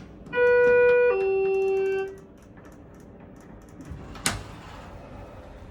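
Schindler elevator chime sounding two descending electronic notes, a higher tone then a lower one, each about a second long, marking the car's down direction. About four seconds in there is a single sharp click.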